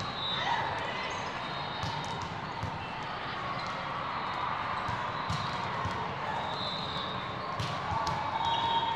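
Volleyballs being hit and bouncing on the court, heard as scattered, irregular thuds over the steady background chatter of a large tournament hall.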